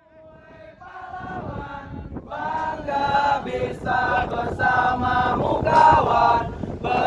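A group of voices singing together in unison, fading in from silence and growing steadily louder.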